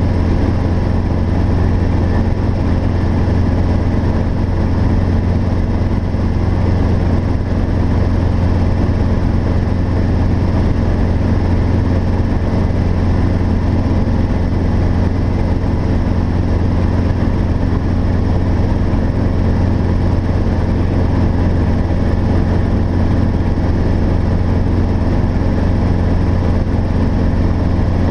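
Robinson R22 helicopter in steady flight, heard from inside the cabin: a loud, unchanging drone of its four-cylinder piston engine and rotors, a deep hum with steady higher tones above it.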